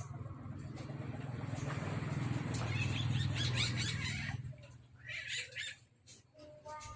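Caged civet making a low, rapid purring churr that grows louder over the first few seconds and stops about four and a half seconds in. A few short scuffles follow, and a brief high squeak comes near the end.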